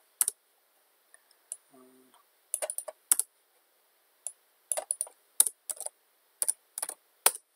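Computer keyboard and mouse clicking: sharp clicks, singly and in short clusters about every second, as text is selected, pasted and entered in a terminal.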